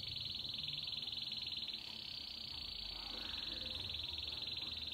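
Domestic canary (canário belga) singing one long, fast rolling trill, high-pitched and steady, whose texture shifts slightly about two seconds in.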